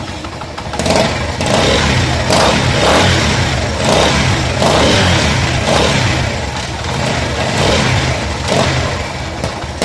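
Motorcycle engine being revved in quick repeated blips, with the head noise that the mechanic puts down to a leaking cylinder-head gasket or loose head nuts letting compression escape.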